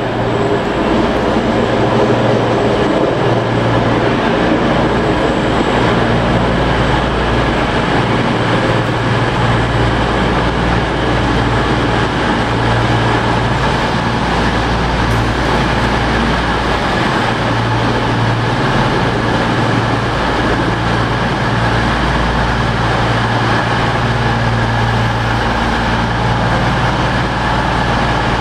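CrossCountry Voyager diesel multiple unit's underfloor diesel engines running with a steady low drone.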